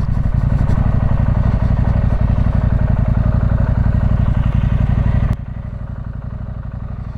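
Husqvarna Norden 901's parallel-twin engine idling steadily with an even, rapid pulse. About five seconds in, the sound drops abruptly in level and turns duller.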